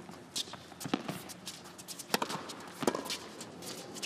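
Tennis rally: racket strikes on the ball, sharp pops about once a second, trading back and forth over faint arena background.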